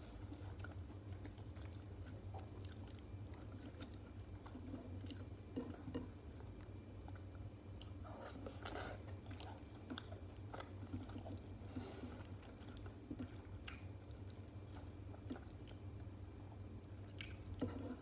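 Close-miked chewing of stuffed cabbage rolls: wet mouth sounds with scattered soft smacks and clicks, over a steady low hum.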